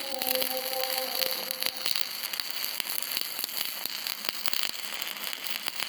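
Electric arc welding: a steady crackling hiss of the arc, with frequent sharp pops.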